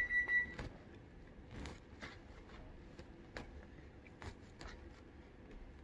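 Faint, scattered crackles and soft tearing of a pomelo's thick white pith and segment membranes as fingers pull the fruit apart.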